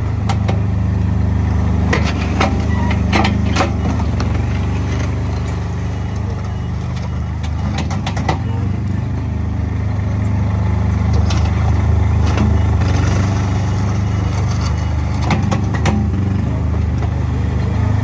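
Small engine of a compact skid steer loader running steadily, with scattered clanks and clicks.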